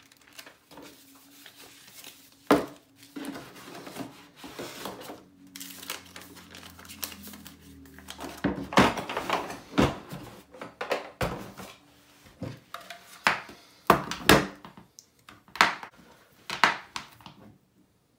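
Handling noise on a workbench: pages of a paper manual riffling, then the red blow-moulded plastic Milwaukee tool case being closed, with irregular sharp plastic clacks and knocks, the loudest about 2.5, 9 and 14 seconds in.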